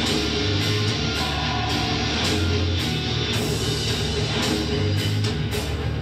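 Heavy metal music with electric guitar, loud and steady in level throughout.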